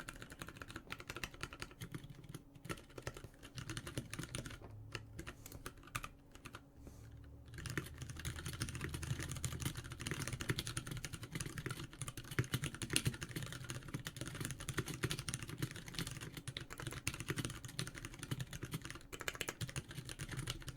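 Typing on a Duck Viper custom mechanical keyboard fitted with lubed, stickered 62-gram Ergo Clear switches and thick BBT keycaps: a few scattered keystrokes at first, then fast continuous typing from about seven seconds in.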